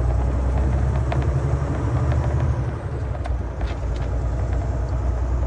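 Semi-truck engine running with a steady low rumble, heard from inside the cab as the truck moves along slowly, with a few light clicks.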